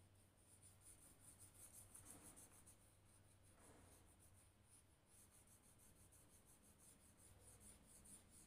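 Faint scratching of a crayon shading on paper in quick, evenly repeated back-and-forth strokes.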